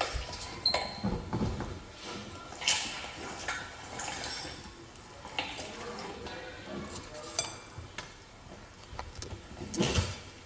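Parts of a manual meat grinder clinking and knocking together as they are handled, in irregular separate knocks with one brief metallic ring under a second in and the loudest knocks near the end.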